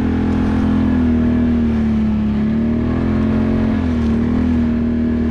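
ATV engine running steadily under way, its pitch sagging slightly and then climbing back as the throttle changes.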